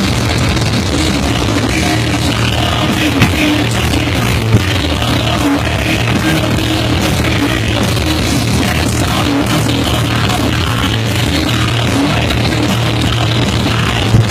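Live heavy rock band playing loud through a big PA, with electric guitar and drums, heard from right in front of the large speakers so the sound comes through poorly. Two brief sharp knocks cut through about three and four and a half seconds in.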